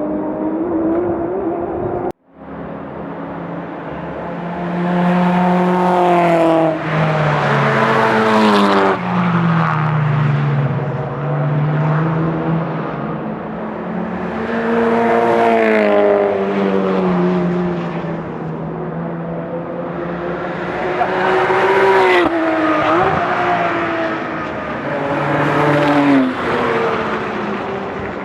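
A car engine driven hard on a race track, its pitch climbing under acceleration and dropping back several times through gear changes and corners. The sound cuts out for a moment about two seconds in.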